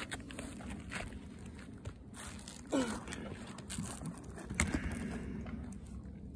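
Hand tools being handled on an asphalt-shingle roof: scattered light knocks and clicks from a hammer and flat pry bar, with one sharper clink about four and a half seconds in and a brief falling squeak about three seconds in.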